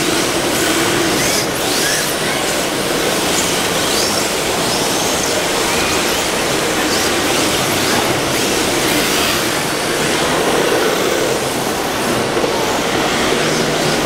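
Several 1/10-scale electric RC drift cars running together: short high motor whines rise and fall again and again over a steady hiss of hard tyres sliding on the smooth floor.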